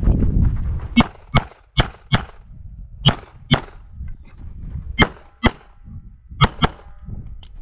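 CZ 75 SP-01 pistol firing five quick pairs of shots, the two shots of each pair a fifth to half a second apart, with about a second between pairs.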